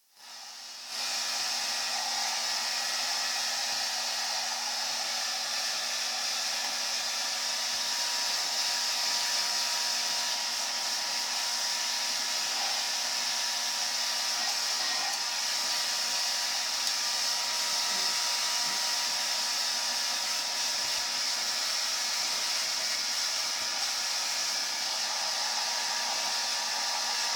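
Electric hair dryer switched on in the first second, then running steadily: an even airy rush with a faint motor whine under it.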